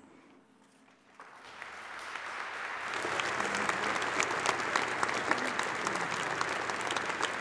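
Congregation applauding, starting faintly about a second in and swelling to steady applause by about three seconds.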